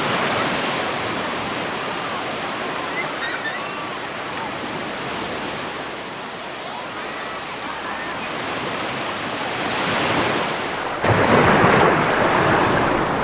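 Sea surf washing steadily. About eleven seconds in it cuts abruptly to a louder, rougher wash of water.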